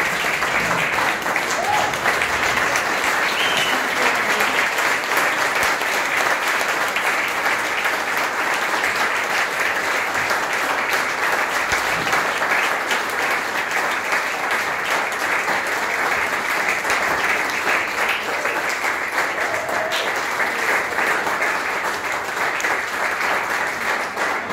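Audience applauding: dense, steady clapping with no break, with a few voices calling out among it.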